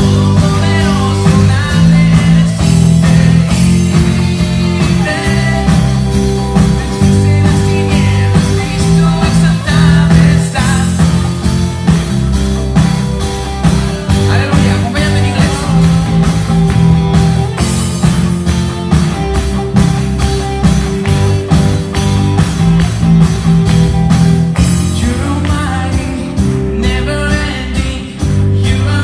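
Live band playing a worship song: a man and a woman singing into microphones over keyboard and electric guitar, with a steady beat.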